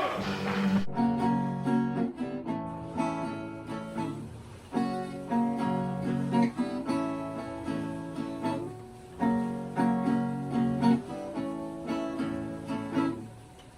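Acoustic guitar strumming a casual, repeating chord progression in short phrases with brief pauses between them.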